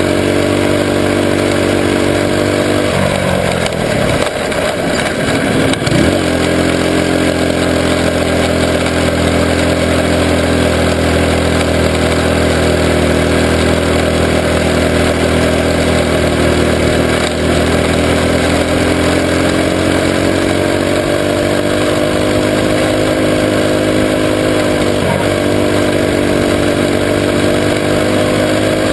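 Junior sprint car engine running hard at high, steady revs, heard close up from the car's own onboard camera. The revs drop briefly and climb back about three to six seconds in, and dip slightly again near the end.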